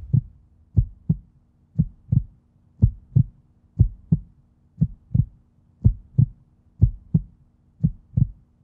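Heartbeat sound effect: pairs of low thumps, lub-dub, about once a second, over a faint steady hum.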